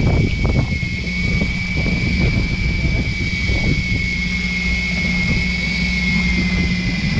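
Fishing boat's engine running with a steady drone and a thin high whine, over uneven low rumbling.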